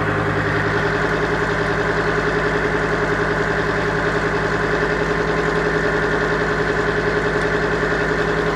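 Mercedes OM605 inline five-cylinder diesel idling steadily with an even, pulsing beat, running in a 1957 Series 1 Land Rover on the first start of the engine swap.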